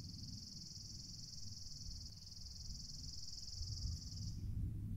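Steady, high-pitched insect buzz, one unbroken note that cuts off about four seconds in, over a low background rumble.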